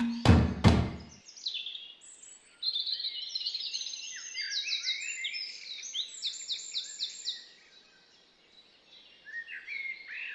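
The last two struck notes of a music track, stopping about a second in, then songbirds singing: many quick high chirps and trills, thinning out after about seven seconds and picking up again near the end.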